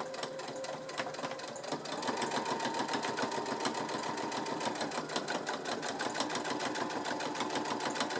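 Electric sewing machine stitching a straight seam, its needle going up and down in rapid even strokes over the motor's hum. It speeds up about two seconds in and then runs steadily.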